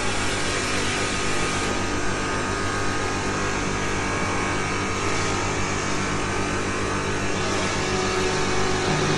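Workshop machinery running with a steady electric-motor hum and whir, unchanging throughout.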